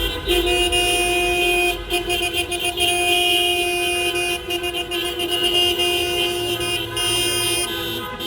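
Several car horns honking at once in long, overlapping blasts, sounded in support of a street protest march.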